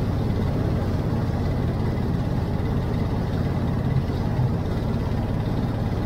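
Motorboat engine running steadily while the boat is under way, a constant low hum.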